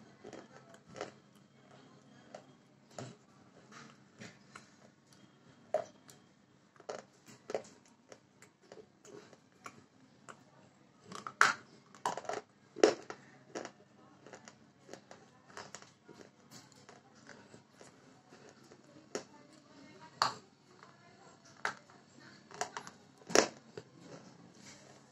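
Close eating sounds of a KitKat wafer bar being bitten and chewed: irregular crisp crunches and mouth clicks, with louder crunches about halfway through and again near the end.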